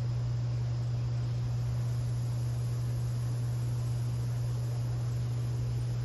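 Steady, unchanging low hum, with an even hiss and a faint, steady high insect trill above it.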